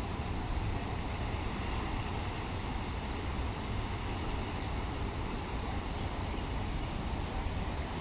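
Steady low background rumble of distant city traffic, with no distinct events.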